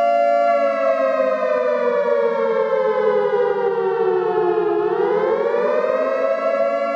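Siren wailing, its pitch sliding slowly down for about four seconds and then rising back up to hold steady again.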